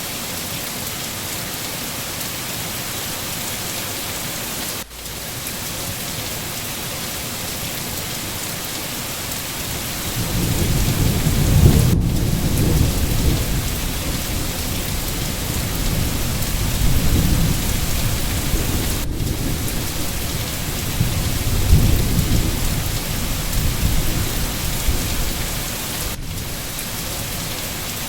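Steady rain hissing, with a long low roll of thunder that builds about a third of the way in, swells twice and dies away near the end.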